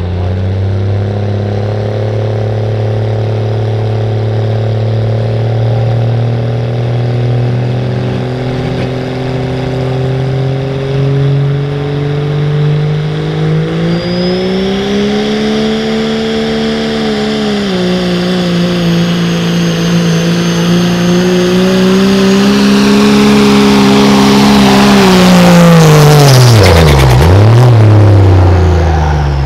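Dodge Ram's Cummins turbo-diesel engine running under full load as the pickup pulls a weight-transfer sled. The engine note climbs steadily, rises sharply about halfway through, dips briefly, then holds high and at its loudest. Near the end the pitch swoops down and back up as the truck passes close by.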